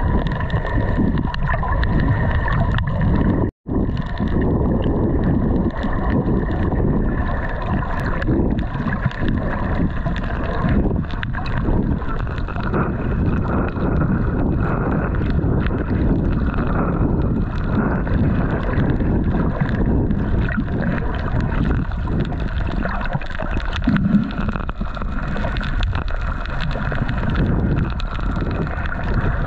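Motorboat under way: its engine runs steadily under heavy wind buffeting on the microphone and water rushing along the hull. The sound cuts out for an instant a few seconds in.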